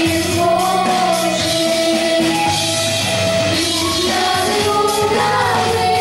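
Girls singing a song together into microphones over instrumental accompaniment, with long held and gliding sung notes over a steady bass line.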